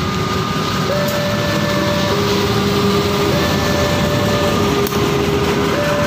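Railway level-crossing warning siren sounding a repeating two-note high-low alternation, each note a little over a second long, over a steady rumbling vehicle noise.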